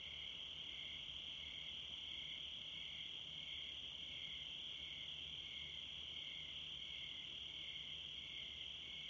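Chorus of crickets trilling steadily, one continuous high-pitched ring with a faint regular pulse under it.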